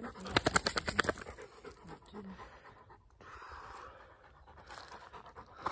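A dog panting rapidly, about seven breaths a second, loudest in the first second and then fading. It is panting from exertion on a run.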